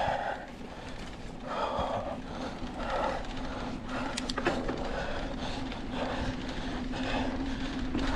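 Mountain biker breathing hard while riding, a heavy breath about every second or so, over rolling trail noise. A steady low hum comes in a few seconds in, and a couple of sharp clicks come just after it.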